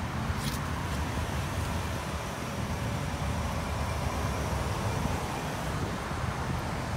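Steady outdoor background noise: a fluctuating low rumble of wind buffeting the microphone over a faint hum of traffic.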